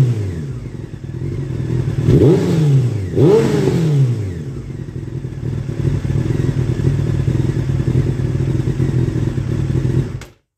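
Motorcycle engine revved twice through a homemade muffler, each blip rising quickly and falling back, then idling steadily until the sound cuts off near the end.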